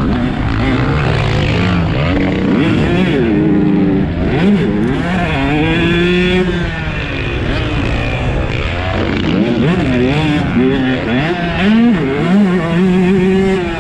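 2022 Husqvarna TC 125's two-stroke single-cylinder engine revving hard, its pitch climbing and dropping again and again as it is throttled up and shifted around the track.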